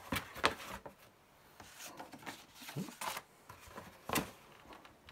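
Paper and cardboard software packaging being handled: a few short rustles and light knocks with quieter shuffling between.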